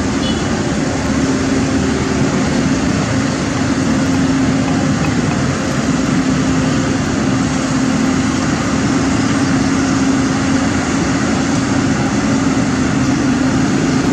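Caterpillar 320D hydraulic excavator's diesel engine running steadily under work, a loud constant drone.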